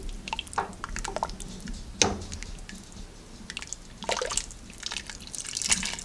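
A ladle scooping menudo broth in a large stainless steel stockpot, the broth splashing and dripping back into the pot several times.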